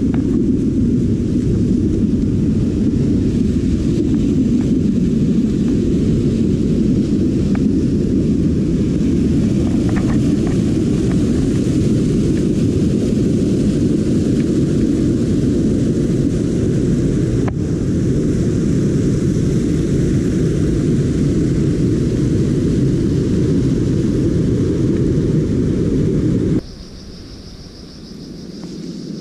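Rushing mountain stream pouring over rocks: a loud, steady roar, heaviest in the low end. It cuts off suddenly near the end.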